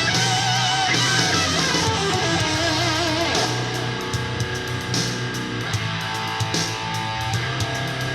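Rock music with a lead electric guitar bending notes with vibrato over a steady backing, and a sharper percussive beat in the second half. It is played through a DIY Bluetooth boombox with two Dayton Audio ND90 3.5-inch aluminium-cone full-range drivers in its sound test.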